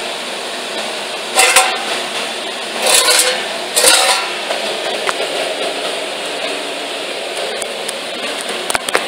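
Pieces of a 16-gauge sheet-steel gas tank scraping and clattering on a workbench as they are handled, in three short loud bursts, over a steady background hiss.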